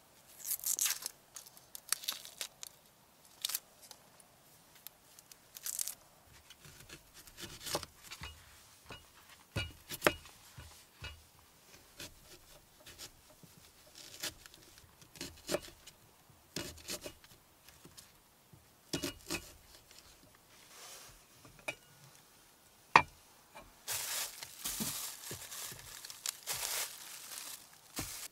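Dry papery onion skin being peeled off by hand, crackling and tearing in short irregular bursts. A single sharp click comes late on, followed by a denser run of crinkling.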